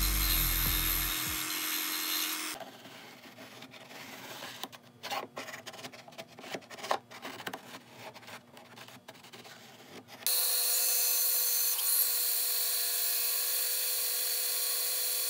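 Disc sander grinding a spalted-wood lure blank, stopping about two and a half seconds in. Then quieter scratching and light clicks as a pen marks a wooden block. From about ten seconds in, a bandsaw runs steadily as the block is fed into the blade.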